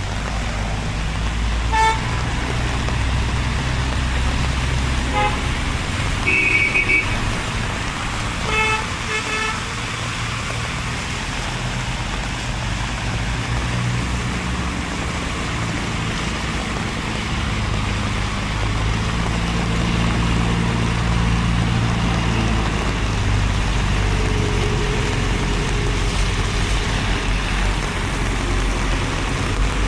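Road traffic: a steady hum of car engines and tyres, with several brief car-horn toots in the first ten seconds, the longest about six seconds in.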